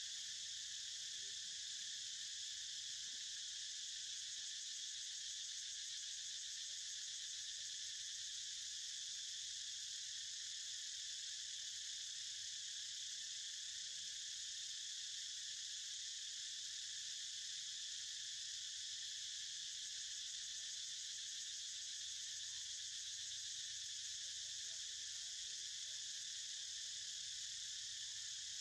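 Steady, high-pitched chorus of insects, an unbroken drone that holds at the same loudness throughout.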